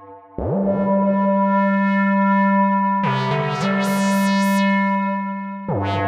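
Yamaha CS01 analog monosynth played through a tape echo. About half a second in, a note swoops up in pitch and is held. Around the middle comes a short run of notes with bright, repeating filter sweeps, and near the end a quick pitch drop leads into a new phrase.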